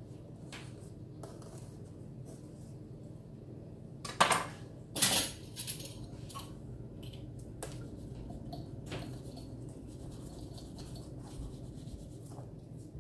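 Knife working through phyllo dough sheets in an aluminium baking tray: soft scrapes and light clicks of the blade against the metal, with two louder clatters about four and five seconds in.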